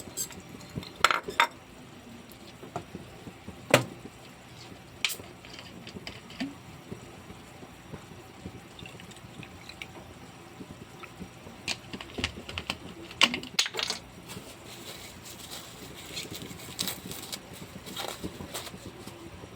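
Kitchen handling sounds: scattered clinks and knocks of utensils against dishes or glassware, with some liquid sounds in between.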